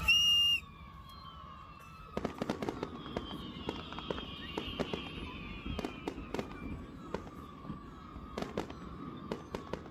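Aerial fireworks going off: from about two seconds in, a rapid irregular run of bangs and crackles with faint falling whistles beneath. A brief, loud high-pitched tone sounds right at the start.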